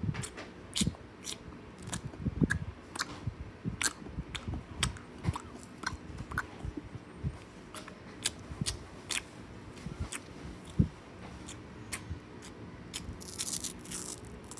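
Chewing a lemon Mentos candy: irregular mouth clicks and crunches, several a second at first and thinning out later.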